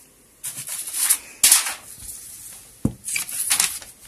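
Rustling and rubbing handling noise as objects and the phone are moved about, in several short hissing bursts, with a dull knock just before three seconds in.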